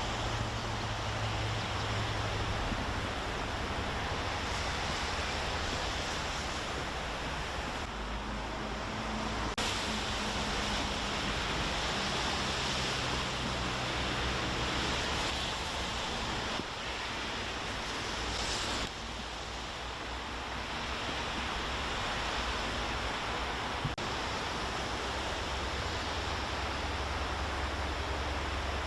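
Rushing water of a river in flood: a steady, even rush of noise, its tone shifting abruptly several times.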